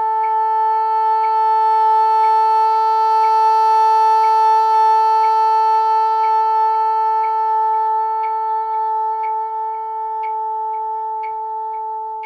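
A bassoon holds a single high note in its top octave as a long tone. It swells louder over the first few seconds, then slowly fades and stops just before the end. The player hears slight quivers in it from uneven lip pressure, which she takes as the mark of an embouchure that is out of shape or not yet warmed up. A metronome ticks about twice a second under it.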